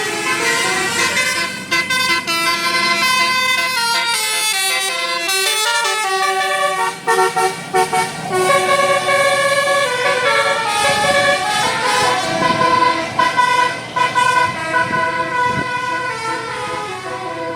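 Bus telolet horn, a Basuri multi-tone air horn, playing a melody of loud held notes that step from pitch to pitch, with a short break about seven seconds in.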